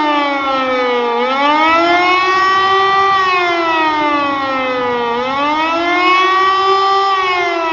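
E57 electric motor siren sounding the German 'Warnung' warning signal as a test: a loud wail that rises and falls in pitch, dipping to its lowest about a second in and again about five seconds in.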